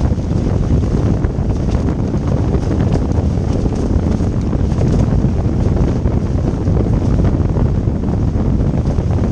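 Strong wind buffeting the microphone on a Hobie Cat sailing catamaran in high wind: a loud, steady low rumble.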